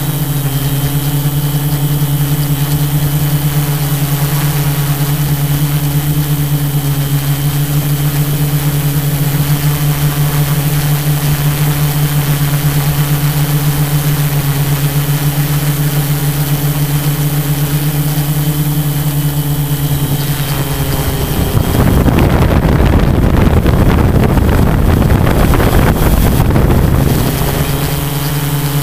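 Tarot 680 Pro hexacopter's motors and propellers humming steadily in flight. About two-thirds of the way through, a louder rushing noise drowns out the hum for around six seconds, and then the steady hum returns.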